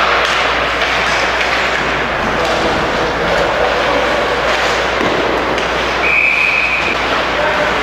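Steady noise of ice hockey play on a rink, with one short, steady whistle blast about six seconds in, typical of a referee stopping play.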